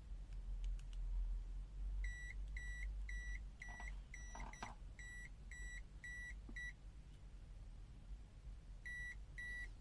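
CZD FS898 digital multimeter beeping in non-contact voltage (NCV) mode, short high-pitched beeps about twice a second, the signal that it senses AC voltage nearby. The beeping starts about two seconds in, stops for about two seconds past the middle, and starts again near the end.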